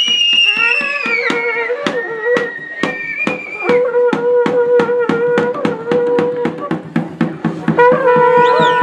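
Traditional Himalayan village festival music: drums beating steadily at about four strokes a second under wind instruments holding long notes that bend and waver.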